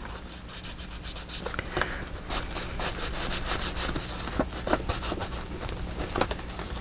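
Paper being rubbed down by hand: a quick, dry, scratchy rubbing, busiest in the middle, as a freshly glued paper piece is pressed and smoothed onto the envelope pocket.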